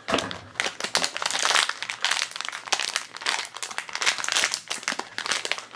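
Clear plastic bag crinkling and crackling in the hands as a vinyl keychain is unwrapped from it, with many quick irregular crackles throughout.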